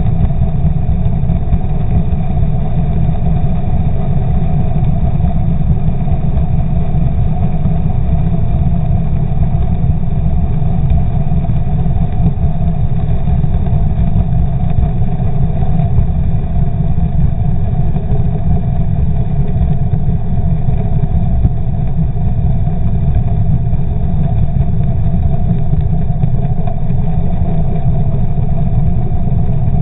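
Outboard motor running at a steady speed, heard from underwater right beside its spinning propeller: a loud, deep, even rumble with a steady hum above it, with no change in speed.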